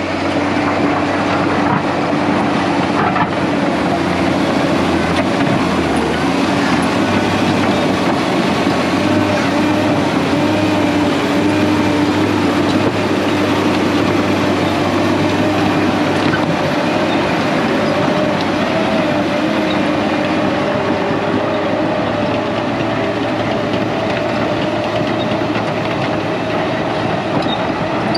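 Case 1650M WT crawler dozer working under load, its diesel engine running steadily while the steel tracks clatter as the blade pushes rock and dirt.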